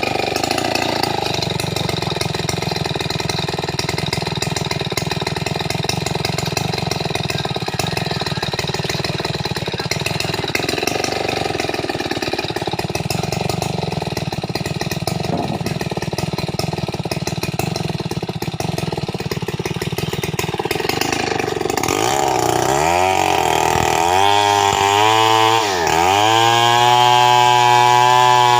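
Stihl 070 large two-stroke chainsaw running steadily at a lower speed, then, about 22 seconds in, revving up to a louder, higher note that dips briefly in pitch a few times.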